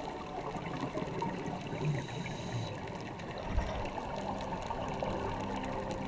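Underwater scuba-dive sound picked up through the camera: a steady crackling, bubbling water noise from divers' exhaled regulator bubbles and moving water.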